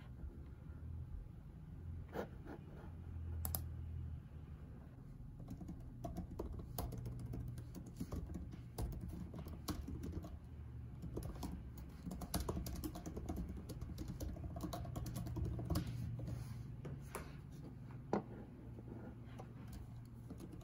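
Typing on a laptop keyboard: an irregular run of soft key clicks, over a low steady hum.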